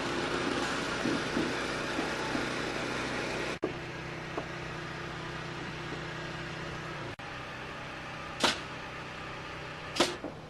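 Construction machinery engine running steadily at a building site. The sound breaks off and changes abruptly twice. Near the end come two short, sharp hissing bursts.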